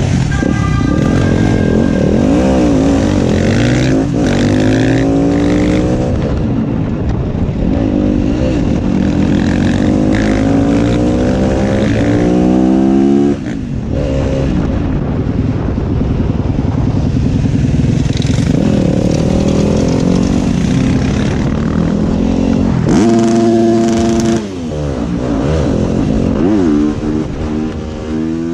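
Motorcycle engine heard from on board, revving hard under acceleration: the pitch climbs through each gear and drops back at every shift, several times over.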